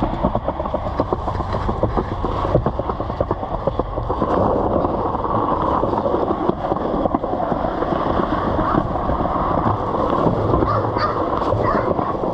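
Skateboard wheels rolling on a concrete sidewalk: a steady rough rumble, with many short sharp clicks in the first few seconds, getting louder about four seconds in.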